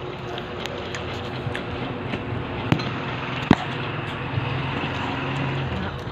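Street traffic noise with a low engine hum, and two sharp clicks less than a second apart near the middle.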